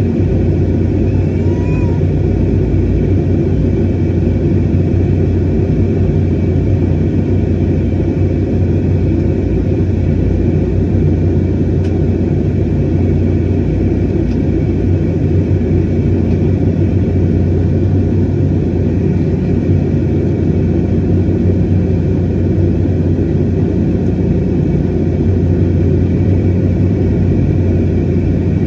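Airliner cabin noise in flight: the steady, loud roar of the jet engines and rushing air heard from a window seat, deep and unchanging.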